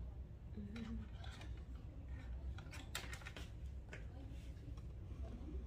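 Scattered light clicks and taps of a small gooseneck LED sewing lamp being handled and repositioned on an industrial sewing machine head, with a cluster of sharper clicks about three seconds in, over a low steady hum.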